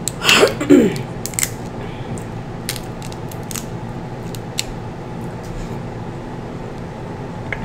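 Cooked snow crab leg shell being cracked and picked apart in the hands and at the mouth: scattered sharp clicks and snaps, spaced irregularly. A brief vocal hum comes in the first second.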